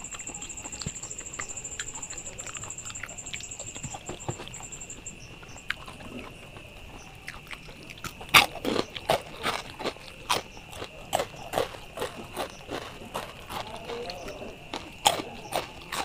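Close-miked chewing of a mouthful of rice, with wet mouth clicks and smacks a few times a second, starting about halfway through. A steady high-pitched whine runs underneath, with a still higher tone that fades out about a third of the way in.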